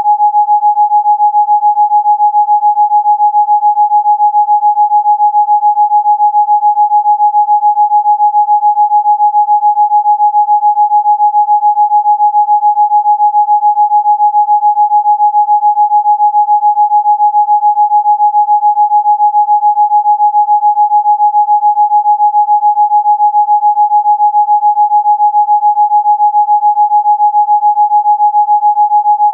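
Electronically generated sine-wave tone, a single pure pitch held perfectly steady throughout: a 'Rife frequency' tone meant to be listened to for relief.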